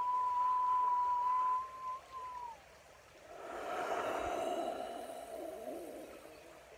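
A man whistling one long steady note that slides down in pitch and stops about two and a half seconds in, followed after a short pause by a breathy blow through pursed lips lasting about three seconds.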